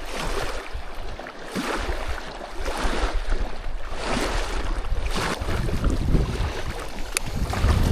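Wind on the microphone with small waves washing against the dam wall, swelling about every second or so. A single light click near the end.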